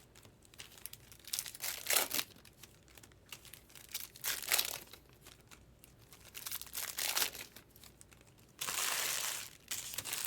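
Plastic wrapping on trading-card boxes crinkling and tearing as they are opened, in several short bursts with a longer tear near the end.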